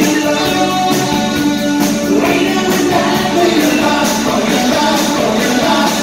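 Live new wave rock band playing through a club PA: electric guitars, synthesizer keyboard and drums, with a steady beat.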